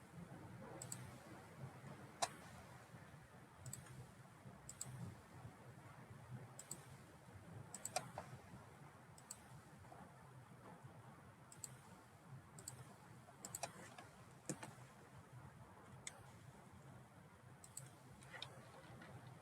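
Computer mouse clicking: sharp single clicks at irregular intervals, roughly one a second, over a faint low hum.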